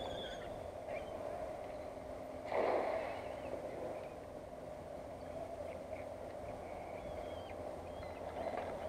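Outdoor waterside ambience: a steady low hum with faint, short bird chirps scattered through it, and a brief louder rush about two and a half seconds in.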